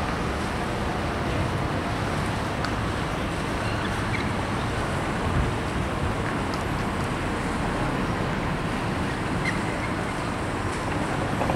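Steady low rumble of outdoor harbourside ambience with distant traffic hum, and a few faint ticks. No single event stands out.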